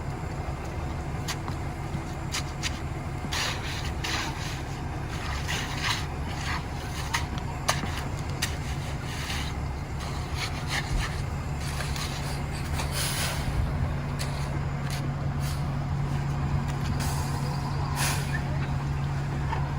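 Peterbilt McNeilus concrete mixer truck's diesel engine running steadily, its drone getting stronger about twelve seconds in, with short sharp hisses and clicks scattered throughout.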